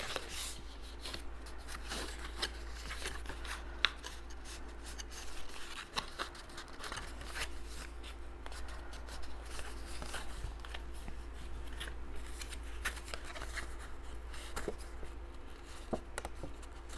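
Cardstock being folded and creased by hand along its score lines: papery crackles, rubs and light taps scattered throughout, with one sharper tick about 4 s in, over a steady low hum.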